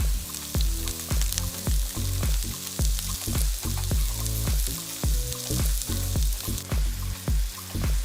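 Background music with a steady beat and a moving bass line, with a fine crackling hiss over it.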